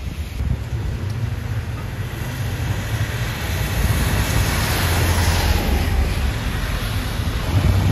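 Street traffic on a wet road: a double-decker bus passes, its tyre hiss swelling and fading about four to six seconds in, over a low rumble of wind on the microphone.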